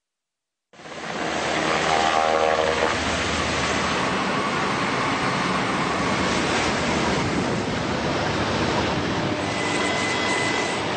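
Steady loud rushing noise of engines and wind from field footage at sea, starting abruptly about a second in; a faint high whine comes in near the end.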